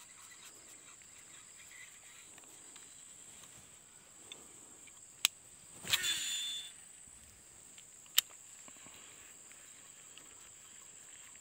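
Steady high insect buzz of crickets. About five seconds in there is a sharp click, then a short whirring rush of under a second as the baitcasting reel casts, and a second sharp click about two seconds later.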